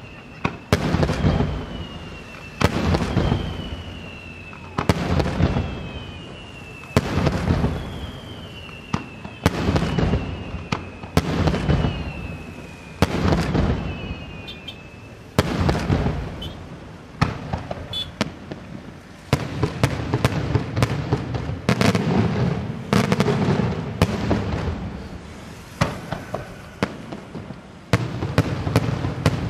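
Daytime fireworks display: aerial shells bursting in loud bangs about every two seconds, several of them followed by a short falling whistle. In the last third the bursts come faster, mixed with crackling.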